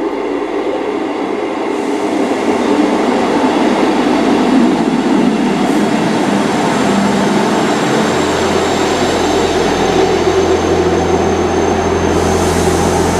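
A Class 158 diesel multiple unit running into the platform: steady loud diesel engine and rail noise. A deep hum joins about two-thirds of the way through.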